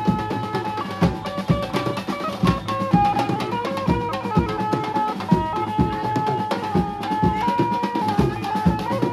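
Mumbai banjo-party procession music: dhols beating a steady rhythm under a melody played through horn loudspeakers, the melody moving in held notes.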